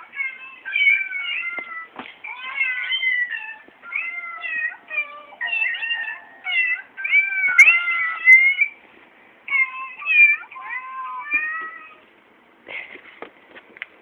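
Kitten meows, many high calls overlapping in quick succession, stopping about twelve seconds in, followed by a few soft clicks and rustles.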